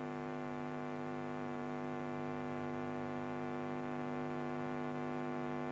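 Steady electrical mains hum on a VHS tape's audio track: a low, even buzz with a dense stack of overtones, unchanging throughout.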